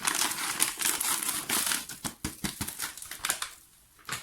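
Plastic bag of granulated sugar crinkling as the sugar is poured out, a crackly rustle that dies away after about three and a half seconds.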